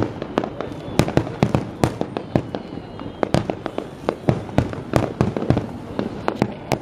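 Fireworks display: a rapid, irregular run of sharp bangs from aerial shells bursting, about three a second.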